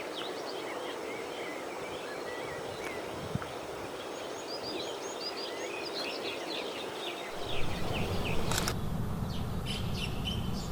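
Small birds singing and chirping in quick, short notes over a steady outdoor hush. About seven seconds in a low rumble comes in, with a sharp click shortly after.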